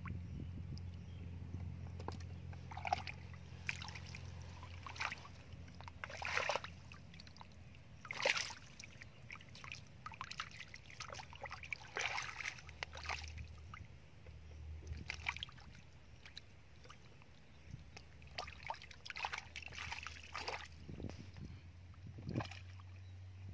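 Hands splashing and sloshing through shallow muddy water while groping for fish in the mud, in short irregular splashes a second or a few seconds apart.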